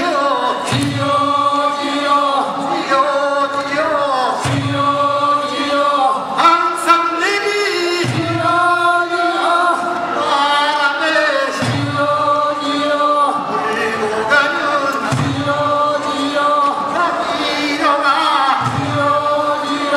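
A chorus of men singing a Korean folk work song without instruments, repeating a short phrase about every three and a half seconds.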